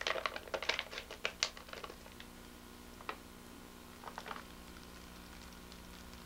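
A candy wrapper being torn open and crinkled, a quick run of crackles lasting about two seconds. Then come a few isolated rustles as the rolled sugared candy strip is taken out.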